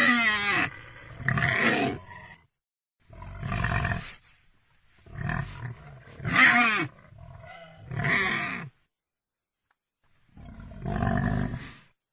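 Pig sound effects: a series of about seven loud calls, several falling in pitch, separated by short silences.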